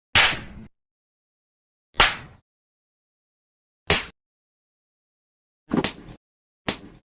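Five sharp open-hand slaps to the face, one at a time, each cut off into dead silence. They come about two seconds apart, and the last two come closer together.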